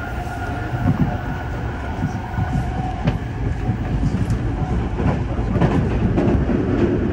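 Commuter train running at speed, heard from inside the car: a steady rumble of the wheels on the rails with scattered clicks, and a faint whine that fades out about three seconds in.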